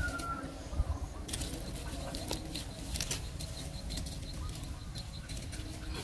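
Irregular rustling and clicking over a steady low rumble, with a rooster's crow trailing off just as it begins.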